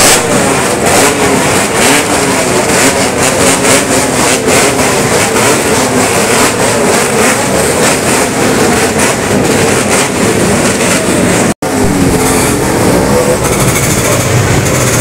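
Many motorcycle engines running and revving together in a packed convoy, overlapping throttle blips with sharp pops. The sound drops out for an instant about two-thirds through, then carries on.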